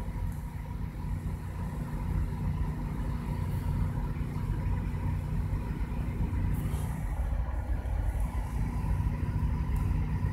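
An engine running steadily at idle: a low, even hum that does not change throughout.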